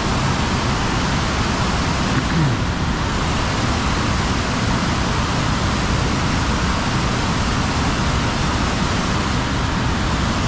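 Water pouring over a low-head dam spillway and churning below it: a steady, loud rushing with no break.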